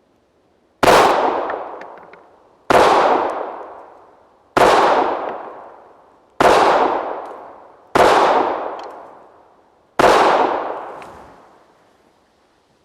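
Six shots from a Colt Mustang Lite .380 ACP pocket pistol, fired one at a time about two seconds apart, each followed by a long trailing echo.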